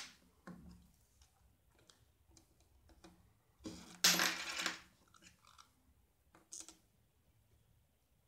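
A 1 rupee coin drops onto a polished wooden tabletop about four seconds in, with a short metallic clatter of under a second. A few faint taps and rustles come from handling the coin and the folded banknote.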